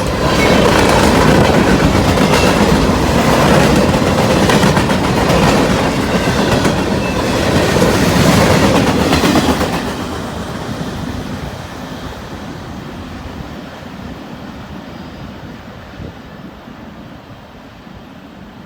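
Freight cars of a CSX manifest train rolling past, wheels clicking over the rail joints. The sound is loud at first, then about halfway through it drops off and fades steadily as the end of the train passes and moves away.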